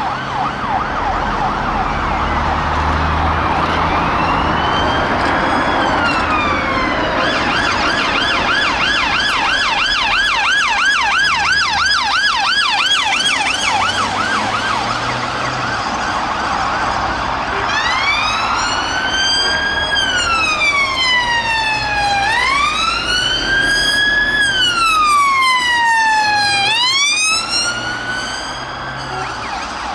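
Police car sirens passing, more than one at a time. A fast yelp cycles about three to four times a second through the first half. In the second half a slow wail rises and falls about every four to five seconds, over the low rumble of the cars' engines and tyres.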